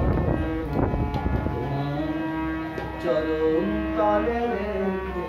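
Harmonium playing long held reed chords with a slow melody moving above them. A drum beats briskly through the first second and a half, then stops, leaving the harmonium sounding alone.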